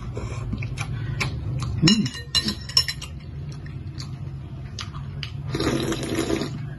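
Eating a bowl of noodle soup: a metal fork and spoon clink against the ceramic bowl, ringing loudest about two seconds in. Near the end comes a long slurp as broth is drunk straight from the tilted bowl.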